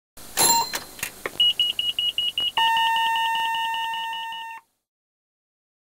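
A few clicks, then rapid high electronic beeps, about ten a second, for just over a second, then a steady electronic tone for about two seconds that fades a little and cuts off suddenly.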